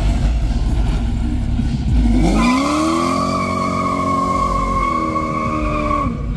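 Chevrolet Monte Carlo SS V8 revving hard as its rear tyres spin in a burnout. Engine and tyre noise come first; about two seconds in, the revs climb and hold under a steady high tyre squeal. The engine note dips twice near the end.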